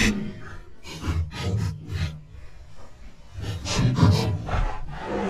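A crappie flopping on a plastic measuring board and a foam deck mat, giving an irregular run of sharp slaps and scuffs in several flurries.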